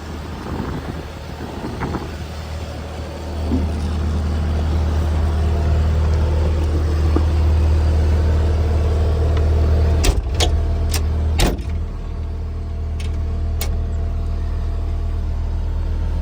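Bobcat S250 skid steer's Kubota diesel engine idling steadily, growing louder about three and a half seconds in. A few sharp clicks or knocks come a little past the middle, then two fainter ones.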